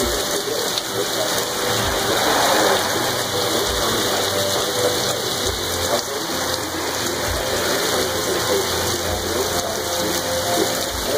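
Torrential wind-driven rain pouring down on pavement and a parked pickup in a steady, loud hiss, with occasional low thumps.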